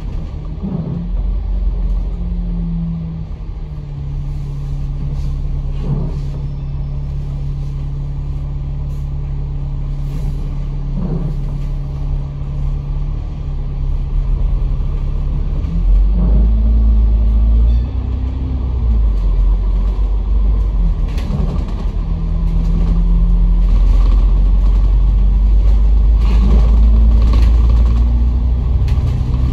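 A diesel bus's engine and drivetrain running under the passengers, with a steady low rumble. The engine note rises as the bus pulls away and speeds up about halfway through, and again near the end.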